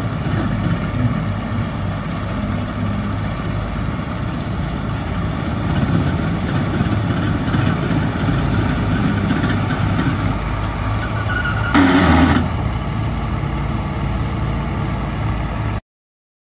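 Bizon Z056 combine harvester running as it cuts rye, its diesel engine and threshing machinery giving a steady drone. A brief louder burst comes about twelve seconds in, and the sound cuts off suddenly near the end.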